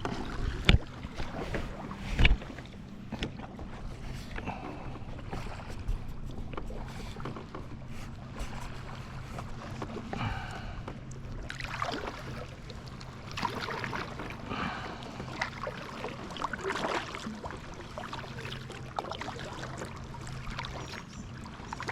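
Kayak paddling: the paddle blades dip and splash in lake water at irregular strokes, with water dripping off the blades. There are two sharp knocks in the first few seconds.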